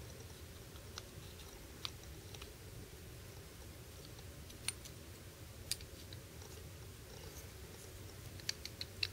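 Small, sharp clicks of a DPX HEST folding knife's parts being handled and seated together by hand during reassembly, the blade, washers and handle scale pressed into place. The clicks come singly and scattered, several close together near the end, over a faint steady low hum.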